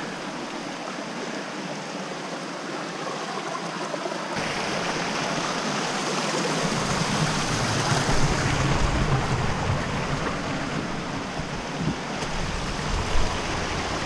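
Creek water rushing steadily over rocks. About four seconds in it abruptly becomes fuller and louder, and a low rumble joins it from about halfway.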